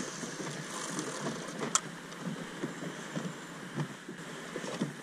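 Quiet wind and water noise around a small boat drifting, with light irregular splashes and one sharp click nearly two seconds in.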